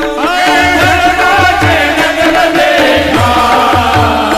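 Warkari kirtan devotional singing: a lead voice sliding through an abhang melody over a steady harmonium, regular mridang (barrel drum) strokes and small tal hand cymbals.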